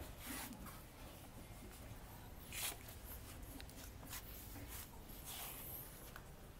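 Quiet background with faint rustles and a few light clicks; two short hissy rustles stand out, one about two and a half seconds in and another just after five seconds.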